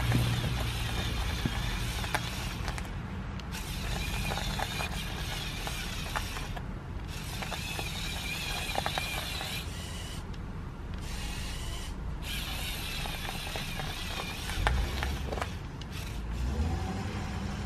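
Lego Technic Volvo L350F wheel loader's electric Power Functions motors and plastic gears whirring as it drives through snow, with scattered clicks. The whir stops briefly several times as the drive is switched off and on.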